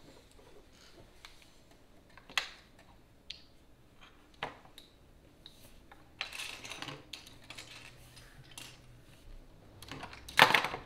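Loose LEGO pieces clicking and clattering against each other and the tabletop as they are picked through and handled: scattered single clicks, a busier patch of clatter in the middle, and the loudest clatter of bricks near the end.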